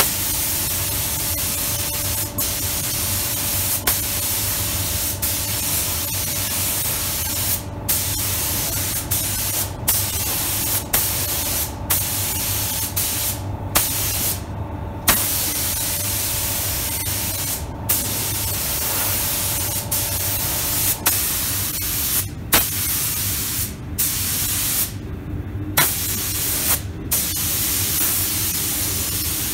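SATA 5000 RP spray gun with a 1.2 mm nozzle hissing as it atomises clear coat onto a bumper. The hiss stops for a moment about a dozen times as the trigger is released between passes. A steady low hum runs underneath.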